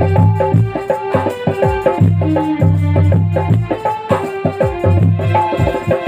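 Live instrumental folk music: hand drums play a quick, busy rhythm with deep booming strokes, under a melody that steps between held notes.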